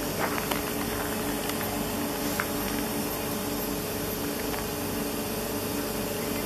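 Steady mechanical hum and hiss of a VR passenger train standing at the platform, with a few faint clicks in the first seconds.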